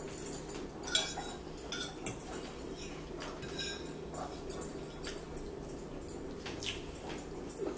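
Metal forks clinking and scraping against dinner plates in short, irregular ticks as two people eat, over a steady low hum.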